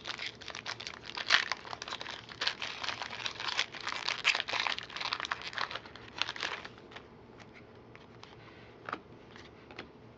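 Plastic wrapper of a trading-card pack crinkling as it is torn open and crumpled, busy and crackly for about the first seven seconds. After that it turns quieter, with a few soft ticks as the cards are handled.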